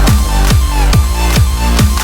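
Electronic dance music with a steady kick drum, a little under three beats a second, over deep bass and synth chords.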